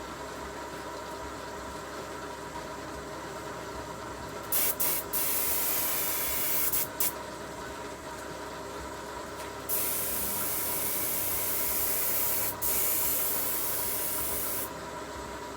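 Hissing spray in two spells of a few seconds each, with brief sharp cut-outs, over a steady hum.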